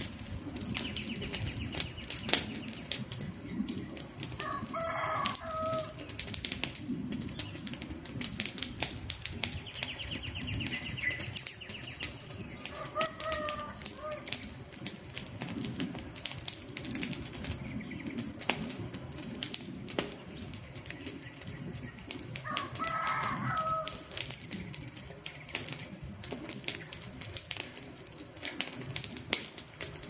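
Wood campfire crackling, with a dense run of sharp pops and snaps over the low rush of the flames. A bird calls three times in the background, and a high trill sounds twice in the first half.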